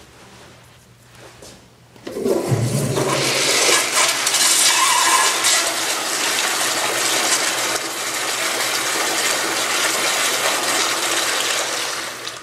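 Commercial toilet with a chrome flushometer valve flushing: a sudden loud rush of water about two seconds in that holds steady for about ten seconds, then cuts off sharply near the end.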